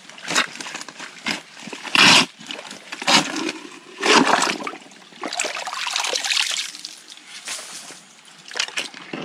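A hoe chopping and scraping into a shallow, muddy spring pool while it is being dug out, each stroke a splash and slosh of water. The strokes come irregularly, about once a second, the loudest about two seconds in.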